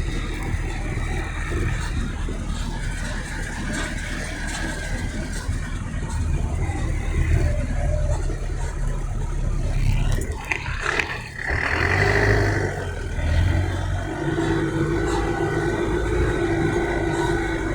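A motor vehicle running, with a steady low engine rumble and road noise. There is a brief disturbance about ten to twelve seconds in, and a steady hum sets in from about fourteen seconds.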